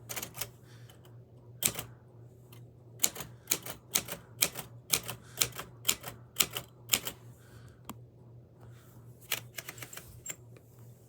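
Keys of a mechanical typewriter striking the platen, a run of sharp clacks about two to three a second, thinning out to a few separate strokes near the end.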